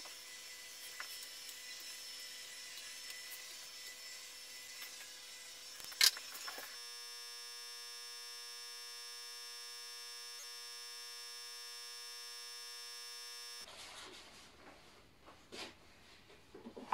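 Faint steady workshop hum with one sharp click about six seconds in, then an unchanging drone. In the last few seconds come soft, irregular rubbing strokes of hand wet-sanding on a cured epoxy tabletop.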